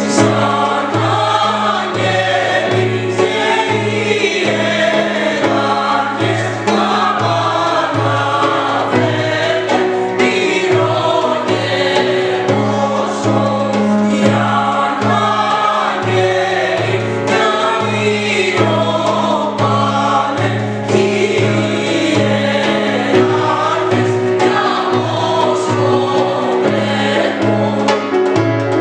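Mixed choir of men's and women's voices singing a Thracian Christmas carol (kalanta) in Greek.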